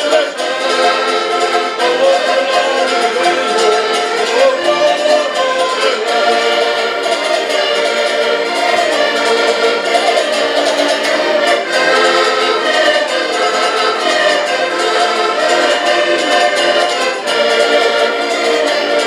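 Several diatonic button accordions playing a folk tune together, with a small plucked string instrument alongside.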